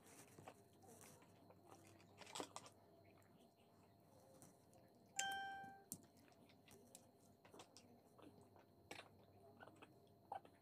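Faint scratching and tapping of a coloured pencil working on sketchbook paper, with one clear ding about five seconds in that fades away in under a second.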